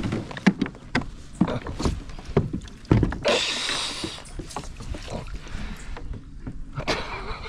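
Knocks and clatter of gear being handled against a kayak's hull and pedal drive, with a short hiss about three seconds in.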